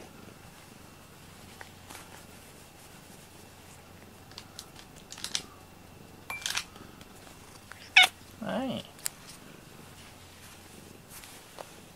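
A Siamese-type cat purring faintly while being stroked, with a few soft clicks, one sharp click about eight seconds in and a brief vocal sound just after it.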